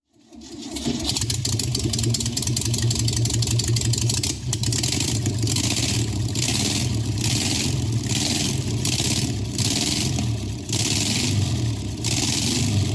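1971 VW Bus's air-cooled flat-four engine starting up and running, its level climbing within the first second, then revved in repeated swells.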